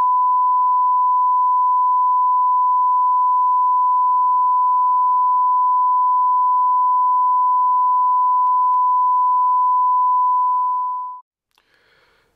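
Television test-card line-up tone: a single steady pure beep held at one pitch for about eleven seconds, then cutting off suddenly.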